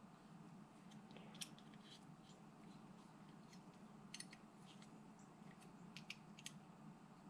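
Near silence with a scattered handful of faint, sharp metal clicks and taps as a hex key turns the set screws in a small steel tool holder, over a low steady hum.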